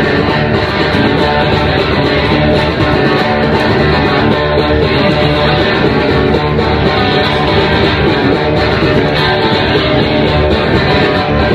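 Punk rock band playing live: loud distorted electric guitars strummed over bass and drums, with no vocals.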